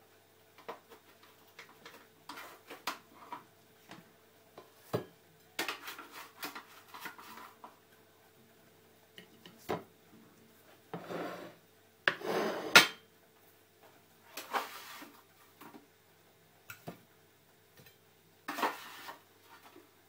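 A spatula scraping and clattering on a metal oven tray as food is served off it onto plates: scattered knocks and several short scrapes, the loudest a little past halfway.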